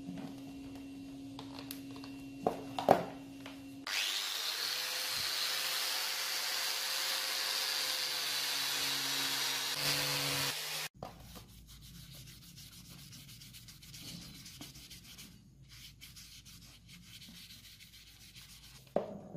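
A low hum with a couple of sharp knocks as the knife is handled on the table. Then about seven seconds of loud, steady hiss that stops abruptly. Then softer rubbing with light ticks as a cloth wipes over the knife's wooden handle.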